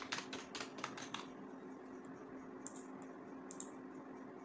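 Typing on a computer keyboard: a quick run of about nine or ten keystrokes in the first second, then a few single clicks later on, over a faint steady hum.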